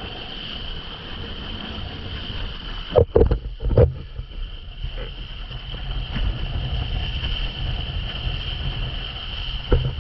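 Wind buffeting the microphone and water rushing under a windsurf board planing fast over choppy sea, with a steady high hiss. The board slaps hard on the chop twice about three seconds in and once more near the end.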